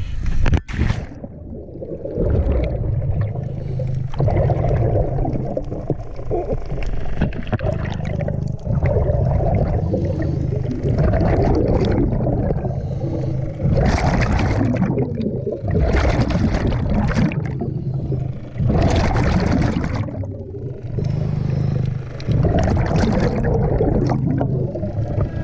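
Underwater sound picked up by a mask-mounted camera: a diver breathing from a hose-fed regulator, with a burst of rushing exhaled bubbles every few seconds over a steady low hum.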